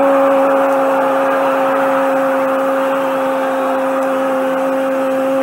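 Football commentator's long held "gol" cry: one steady shouted note that slides up at the start and is held level for about five seconds, over stadium crowd noise.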